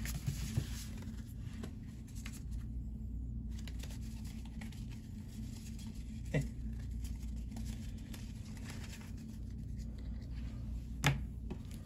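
Low steady room hum with faint scraping and rustling from trading cards and a booster pack being handled, and a few soft taps near the start, about six seconds in and about eleven seconds in.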